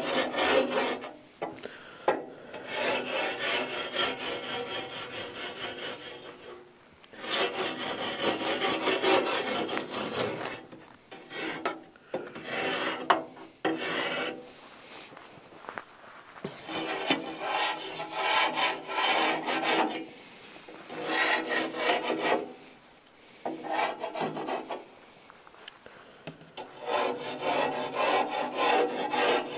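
A small hand scraper rasps up and down inside the heat exchanger of a Central Boiler Classic Edge 350 outdoor wood boiler, scraping buildup off its walls. The scraping comes in runs of strokes broken by short pauses.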